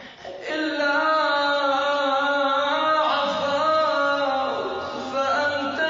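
A man chanting an Arabic supplication verse in a drawn-out melodic line. The held notes bend slowly and begin about half a second in.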